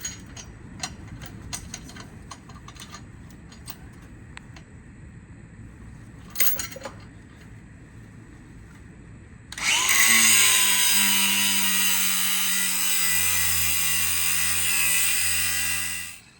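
A handheld power tool runs loudly and steadily for about six seconds, starting about two-thirds of the way in and cutting off sharply near the end. Before it comes a low rumble with scattered sharp clicks.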